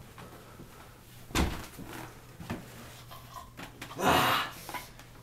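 Scuffle in a small room: a dull thump about a second and a half in, a couple of lighter knocks, then a longer rustling thud about four seconds in as a body goes down.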